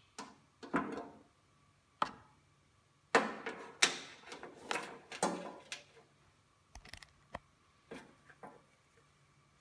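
Handling noise: irregular knocks and clatter as a charger's banana-plug leads and its cardboard box are moved about on a concrete floor, busiest and loudest from about three to six seconds in, then a few light clicks.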